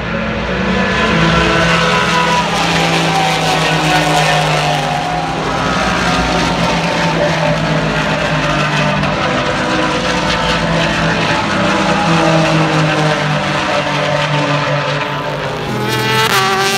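Several IMSA sports race cars running past at speed, their engine notes overlapping and sliding down in pitch as each goes by. Near the end one car accelerates hard, its engine note climbing quickly.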